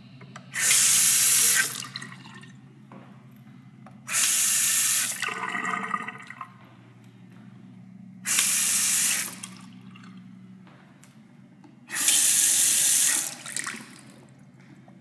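Single-lever bathroom faucet turned on and off four times, each time a loud rush of water into the sink lasting about a second and stopping sharply.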